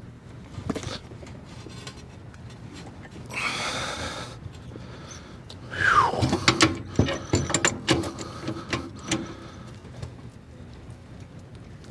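Pipe wrenches on a rooftop gas pack's gas valve, turning it off its threaded gas pipe: metal clicks and a brief scrape, then a short falling squeak about six seconds in, followed by a run of sharp metal clicks and knocks.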